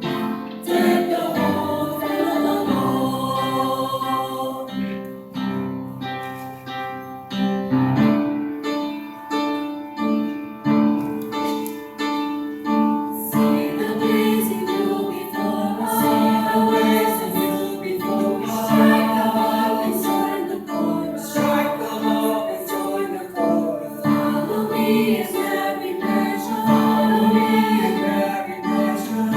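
School chorus singing in several voices, holding long notes. The sound of the choir changes about eight seconds in.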